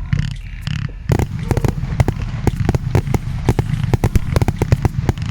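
Consumer firework battery going off with a rapid string of sharp cracks and bangs over a low rumble. The reports are sparse for about the first second, then come thick and fast at about ten a second.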